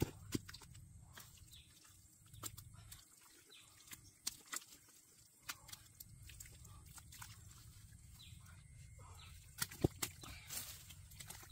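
Bare hands digging and scooping wet mud out of a hole, with scattered short squelches and sharp clicks.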